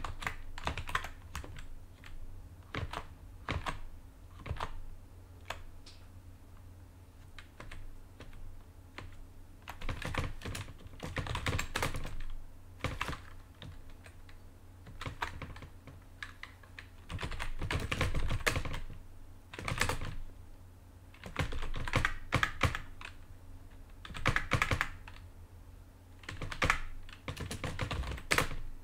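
Computer keyboard typing: irregular keystrokes in short runs with pauses, over a low steady hum.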